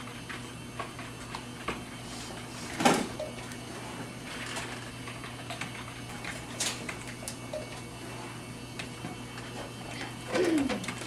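Scattered light clicks of typing on a computer keyboard over a steady low hum, with one louder knock about three seconds in and a short sound falling in pitch near the end.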